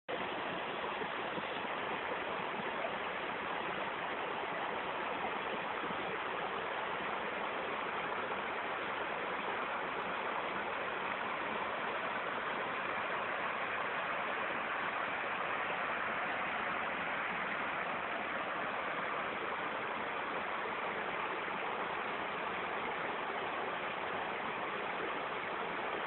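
A rainforest stream running: a steady, even rush of water.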